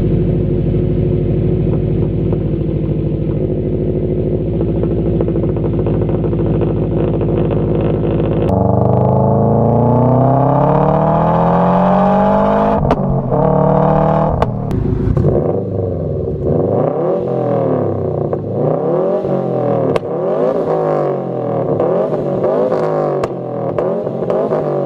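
Exhaust of a 2013 Subaru WRX's turbocharged flat-four idling steadily. It then switches abruptly to the engine pulling up through the gears, its pitch rising and dropping at two quick shifts. After that it is revved in repeated short blips, about one a second.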